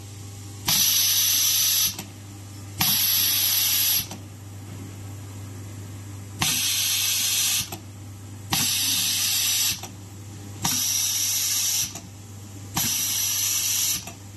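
Automatic laser welding machine welding busbars onto LiFePO4 battery cells: six hissing bursts of about a second each, each starting and ending with a click, over a steady low hum.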